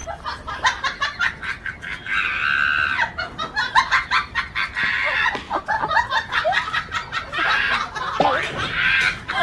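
Animal calls: a rapid run of short cries, with longer, louder calls about two, five and eight seconds in.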